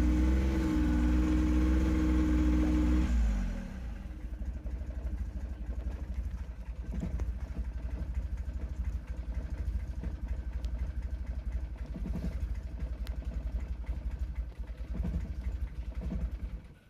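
2006 Mazda 6's 3.0-litre V6 running at raised revs with the throttle pressed for about three seconds. It then drops to a lower, uneven idle and stalls suddenly near the end. This is the start-then-die fault that the uploader traced to the fuel regulator.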